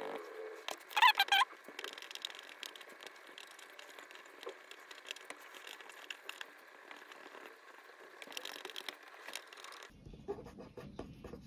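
Faint scratching and light tapping of drawing tools on paper as a portrait is worked over, with a brief squeaky sound about a second in.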